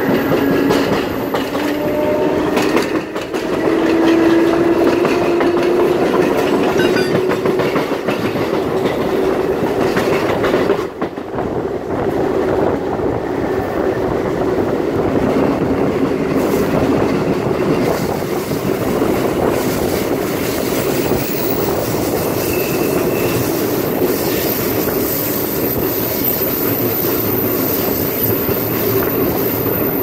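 CBTU Série 900 electric multiple unit running along the line, its wheels clacking over the rail joints under a steady rumble. A tone rises in pitch a few seconds in, and the loudness dips briefly about eleven seconds in.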